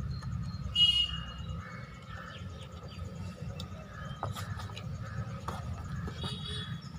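Faint metallic clicks of steel drum brake shoes and return springs being handled and fitted, over a steady low hum. A bird chirps about a second in and again near the end.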